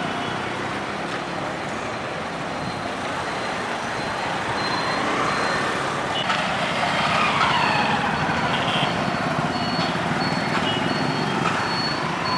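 Road traffic at a junction: motorcycles, scooters and cars passing, engines running and tyres on the road. A short high beep repeats over and over in the second half.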